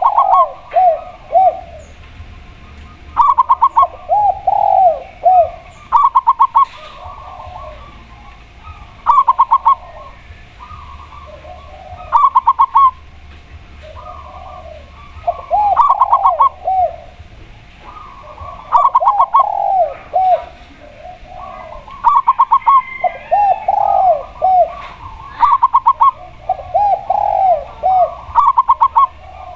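A spotted dove and a zebra dove cooing, their calls overlapping and alternating in bouts about every three seconds. Each bout holds a quick run of higher clipped notes and a set of lower, arched coos. A faint steady low hum sits underneath.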